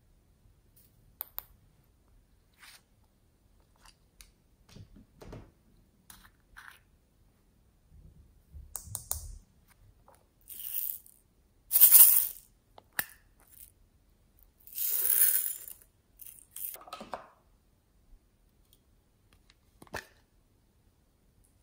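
Small plastic pots of glitter and beads clicking as they are handled, with a few short rattling, pouring bursts as their contents are tipped into the slime tray; the loudest burst comes about twelve seconds in, another around fifteen seconds.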